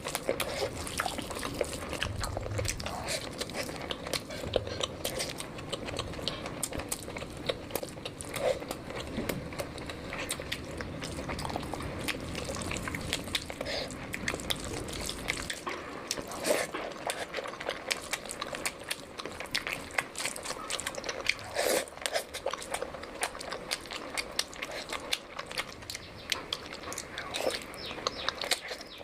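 Close-miked eating sounds: a person chewing and biting, with wet smacking and clicking mouth sounds, as they eat curry and rice.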